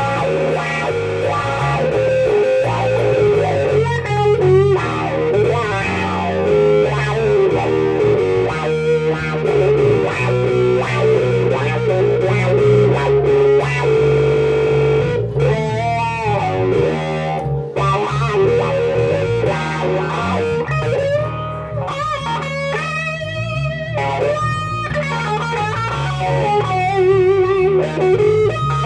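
Live blues-rock instrumental passage: an electric guitar plays a lead solo of sustained, bent notes with vibrato over a steady electric bass line.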